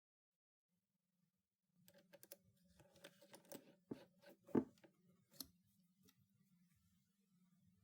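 Faint, irregular light clicks and taps, loudest about four and a half seconds in, over a faint steady hum.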